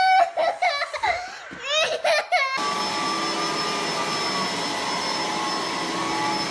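A toddler's high-pitched voice in short rising and falling calls. About two and a half seconds in it cuts abruptly to an upright vacuum cleaner running on carpet, a steady rushing noise with a high whine.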